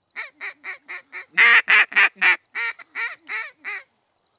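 A run of about a dozen duck quacks, roughly three a second, growing louder toward the middle and then trailing off.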